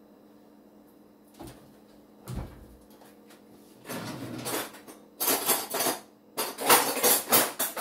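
A glass bowl and a food processor being handled on a kitchen counter: a couple of soft knocks, then a run of louder clinks and clatters from about five seconds in.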